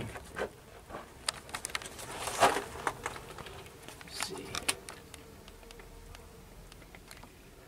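Faint handling noise from a handheld camera being moved about: scattered small clicks and rustles, slightly louder about two and a half seconds in and again around four to five seconds in.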